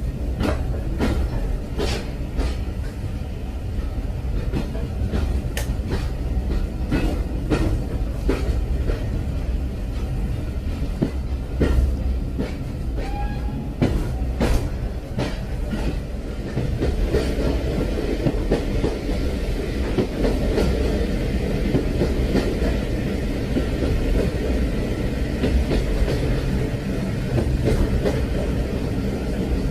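Train running along the track: a steady low rumble with sharp clacks of the wheels over rail joints, turning into a denser, busier clatter about halfway through.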